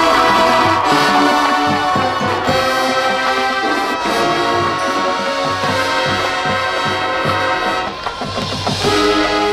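High school marching band playing, the brass holding chords over steady drum hits.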